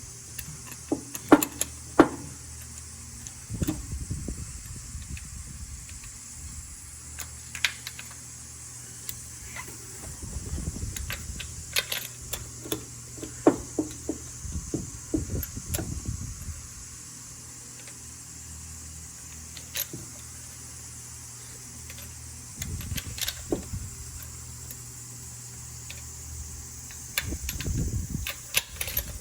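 Irregular metallic clicks, clinks and knocks of hand tools and parts being handled during spark plug work on the engine, mixed with rustling handling noise over a steady low hum.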